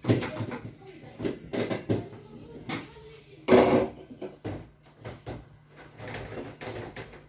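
Irregular knocks and clatter of parts being handled while a refrigerator is worked on, with the loudest knock about three and a half seconds in.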